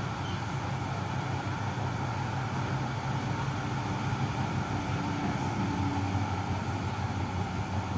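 Tram running with a steady low rumble; a faint hum comes in about three seconds in and fades near six seconds.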